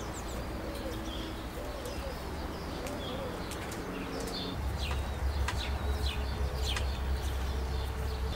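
A dove cooing in a repeating phrase, with small birds chirping. A low rumble comes in about halfway through.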